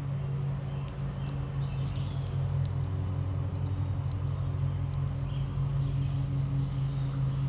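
Steady low mechanical hum of a motor running, holding an even pitch throughout.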